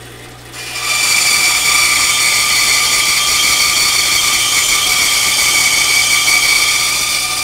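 Bandsaw blade cutting through a wooden block: the cut starts about half a second in and runs steadily as a high hiss with a few whining tones, over the steady hum of the saw's motor.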